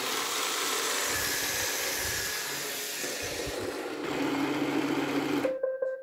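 Roomba 620 main brush motor running in its built-in self-test, a steady whir whose sound changes about four seconds in, cutting off suddenly just before the end, followed by a short tone.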